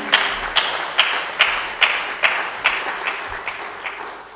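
Audience applauding, with single claps standing out about twice a second, dying away near the end.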